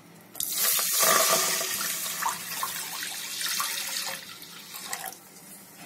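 About a litre of milk poured in a steady splashing stream into a hot kadhai, starting about half a second in and fading off toward the end as the pour ends.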